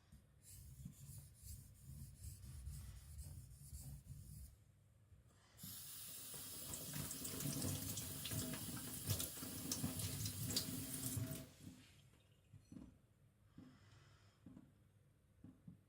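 Light strokes of a blade on a whetstone for a few seconds, then water running from a tap for about six seconds, then a few faint clicks.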